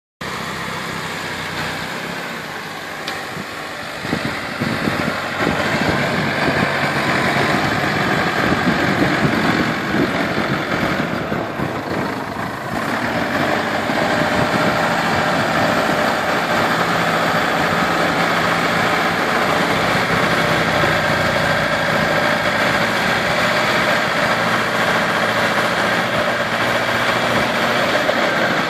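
Massey Ferguson 5612 tractor's four-cylinder diesel engine running steadily under load, driving an Agrimetal 92-inch snowblower that is throwing snow. It gets louder about four seconds in and dips briefly near twelve seconds.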